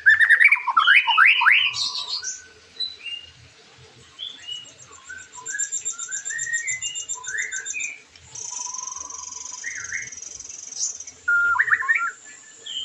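White-rumped shama (murai batu) singing a varied song: loud quick rising whistled sweeps at the start, then scattered clear notes, long high rapid trills through the middle, and another burst of sweeping notes near the end.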